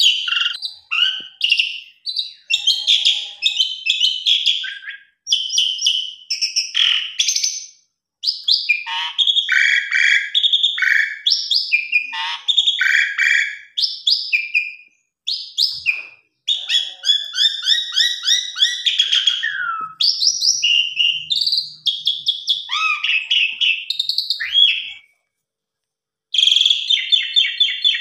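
Caged jalak suren (pied starling) singing: loud phrases of rapid chattering trills and clear whistles, some sliding down in pitch, separated by short pauses, with a gap of about a second near the end.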